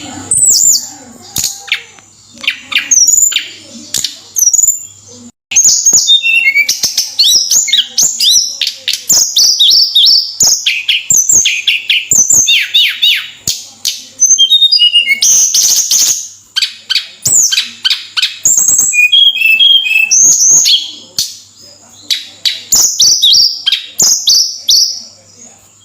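Tledekan gunung songbird singing in full voice: rapid runs of short, high, falling whistled notes and chatter, with sharp clicks in between and a brief pause about five seconds in.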